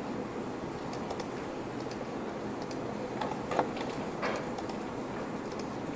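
A few faint, scattered clicks of a computer mouse and keyboard over steady room hiss.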